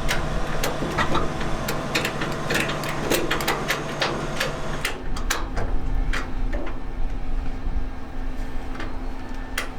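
A motor running steadily, its hum shifting to a higher pitch about halfway through, with scattered sharp clicks and knocks, many in the first half and two more near the end.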